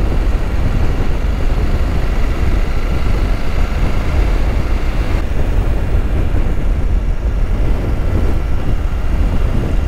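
Motorcycle riding along at steady road speed: a constant low rush of wind on the microphone mixed with engine and road noise, with a faint steady whine above it.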